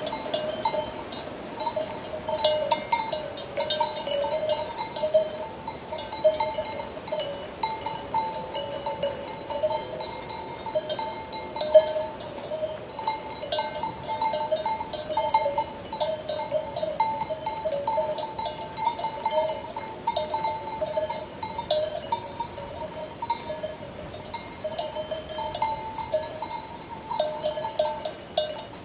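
Sheep bells ringing and clanking irregularly, their tones sounding on without a break. There is a sharper, louder clank about twelve seconds in.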